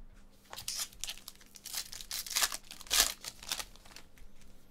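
Foil wrapper of a Panini Contenders baseball card pack being torn open and crumpled by hand, in a quick run of rips and crinkles over about three seconds, loudest about three seconds in.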